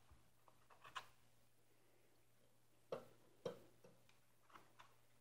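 A handful of light clicks and knocks, irregularly spaced, as brown eggs are lifted from a pulp egg carton and set into a stainless steel pot of water.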